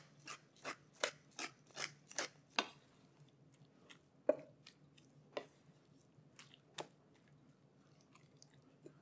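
Hand pepper mill grinding black pepper: a faint run of crunching clicks, about two or three a second, over the first few seconds. After that a wooden spatula stirs spinach in a skillet, giving a few scattered knocks and scrapes.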